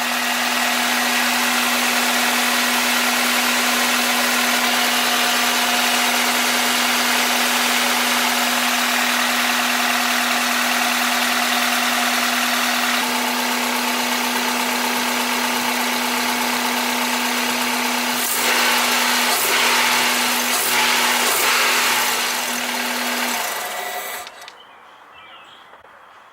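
Honda Accord engine idling steadily through freshly installed aftermarket headers and downpipe, quiet at the exhaust. The sound cuts off near the end.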